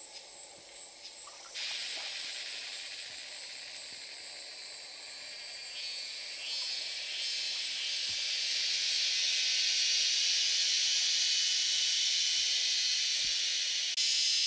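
A fast-pulsing, high insect chirp at the start gives way, about a second and a half in, to a steady, high-pitched cicada drone. The drone swells louder over the next several seconds and then holds.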